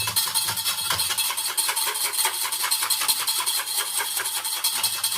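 Hand whisk beating hot boiled milk, a fast, even rattle of strokes against the vessel, frothing the milk into foam.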